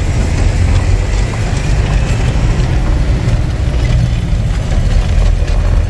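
Truck engine and road noise heard from inside the cab while driving, a loud, steady low rumble.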